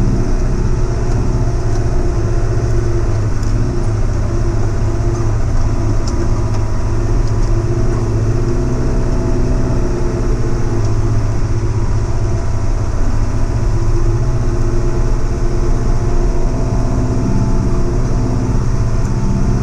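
Diesel engine of a piece of heavy equipment running steadily at an even speed, with a slight change in pitch about halfway through.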